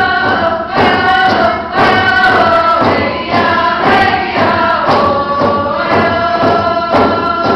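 Group of voices singing a Northwest Coast First Nations wolf-dance song in long held notes, over a steady beat on a hand drum.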